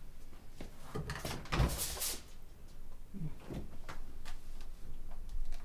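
Refrigerator door being handled and pulled open: a few clicks and knocks from the handle and door, with a louder rush about a second and a half in, then lighter knocks and rustles.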